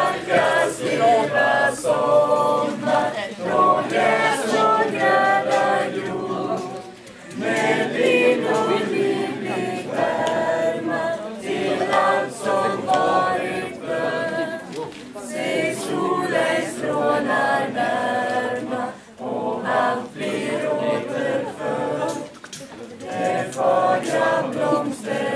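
A mixed group of students singing together a cappella, unaccompanied voices in phrases with brief pauses between them.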